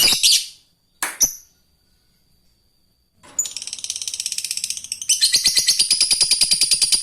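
Lovebird giving two short harsh calls, then breaking into its long rapid chattering trill (the 'ngekek'), about ten pulses a second, which grows louder about two-thirds of the way in and keeps going.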